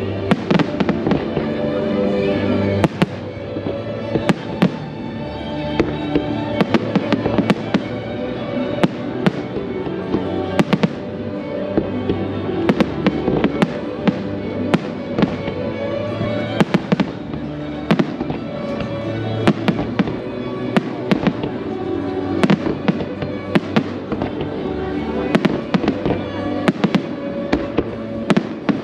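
Aerial firework shells bursting in a steady run of sharp bangs and crackles, several a second at times, over music with sustained notes.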